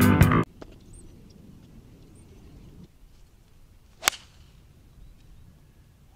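Guitar music cuts off about half a second in. About four seconds in, a 6-iron strikes a golf ball off the tee with a single sharp crack.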